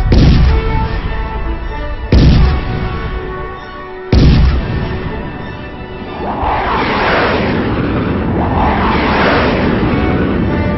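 Intro theme music: three heavy booming hits about two seconds apart over held tones, followed by two long swelling rushes of noise.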